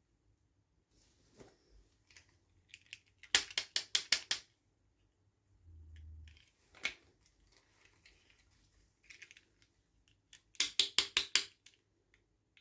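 Plastic toy or packaging being handled: two quick runs of ratchet-like clicking, about eight clicks in a second each, with fainter scattered clicks between them.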